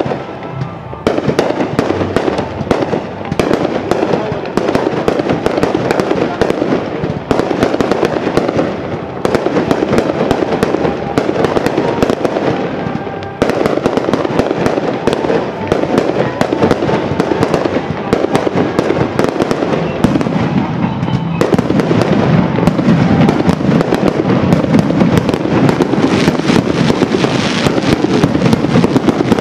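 Fireworks display: a dense, continuous barrage of aerial shell bursts and crackling pops that starts about a second in, dips briefly midway, then grows thicker and louder toward the end.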